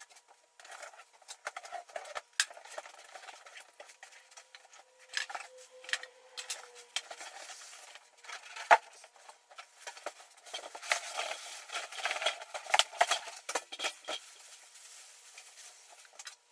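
Cardboard box and packing material being handled as a boxed miter saw is unpacked: irregular rustling, scraping and clattering, busier in the second half, with one sharp knock a little past the middle.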